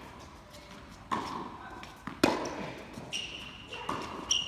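Tennis ball struck by rackets and bouncing on an indoor hard court during a rally: a string of sharp pops, each ringing briefly in a large hall, the loudest about two seconds in. A high squeak starts about three seconds in and runs to the end.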